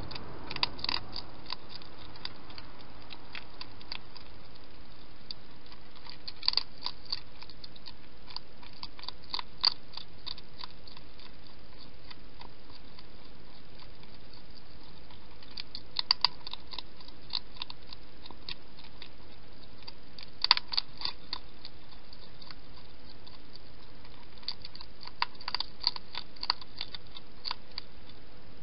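Wild hedgehog chewing its food: bouts of sharp crunching clicks every few seconds, with quiet gaps between them, over a steady hiss.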